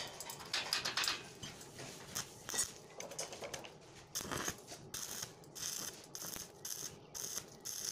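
A few scattered clicks and scrapes, then from about five seconds in a stick-welding arc from a 2 mm E6013 rod crackles and sputters in quick repeated pulses as the hinge is welded to the steel tube.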